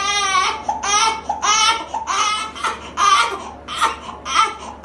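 Newborn baby crying: a longer wail trailing off at the start, then a string of short cries, each under a second long.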